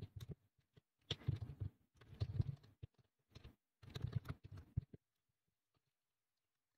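Typing on a computer keyboard: several quick bursts of keystrokes that stop about five seconds in.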